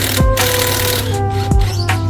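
Background music: a melody of held notes over a drum beat.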